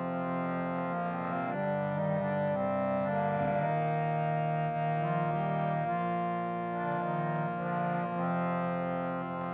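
Harmonium playing a slow instrumental melody of sustained chords that shift pitch every second or so, between chants.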